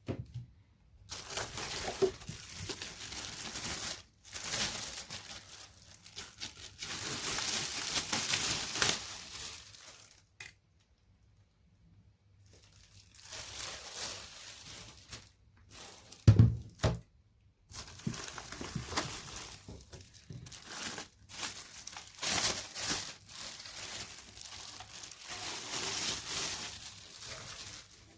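Packaging being handled, crinkling and rustling in bursts with short pauses between, and one heavy thump about sixteen seconds in.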